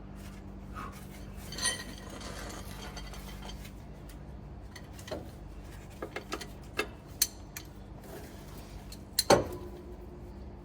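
Metal hand tools clinking and clanking against steel parts: a ringing clank about one and a half seconds in, a run of light taps between six and seven and a half seconds, and the loudest clank near the end, over a steady low hum.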